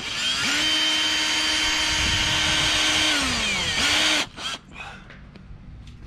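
Cordless drill boring into a painted wooden door frame. The motor spins up and runs steadily with a high whine for about three seconds, then winds down. It gives one more short burst about four seconds in.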